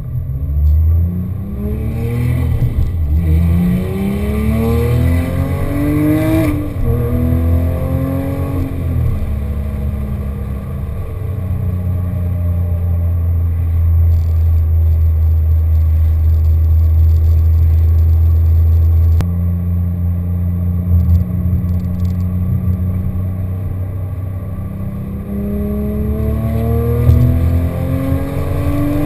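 Porsche 997.1 GT3's flat-six through a GMG World Challenge exhaust (headers, sport cats, centre section), heard inside the cabin. It accelerates from a junction with two upshifts in the first several seconds, settles into a steady cruising drone, then rises in pitch again under acceleration near the end.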